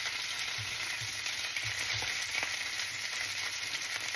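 Italian pork sausages sizzling steadily in a stainless steel skillet, frying in a little leftover oil from a batch of fries, with occasional small pops.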